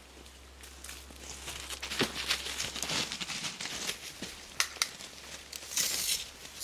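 Footsteps in rubber boots crunching and scuffing on loose crushed-stone gravel, as irregular steps.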